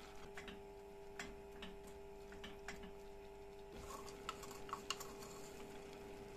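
Light, scattered clicks and taps of kitchen utensils: a spatula knocking against a metal pot while stirring mushrooms, then a small wooden spoon clicking in a salt pot a few times about four seconds in. A steady faint hum runs underneath.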